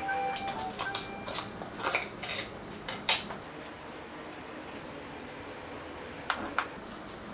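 A table knife scraping and clicking against an abalone shell as the flesh is pried loose, in a few short strokes with the sharpest click about three seconds in. Two faint clicks of the shell being handled come near the end.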